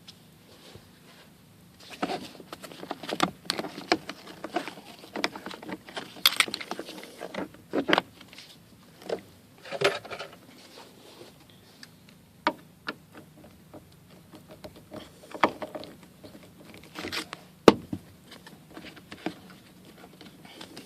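Hands working on a minivan's interior trim with a screwdriver: irregular clicks, knocks, scrapes and rattles of plastic panels and tools, with one sharp knock about three quarters of the way through.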